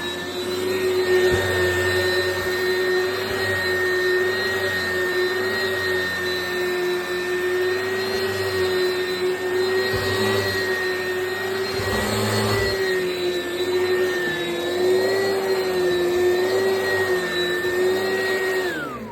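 Oreck XL Commercial upright bagged vacuum running steadily on carpet, its motor giving a steady whine, with a few low knocks along the way. Near the end it is switched off and the whine falls in pitch as the motor spins down.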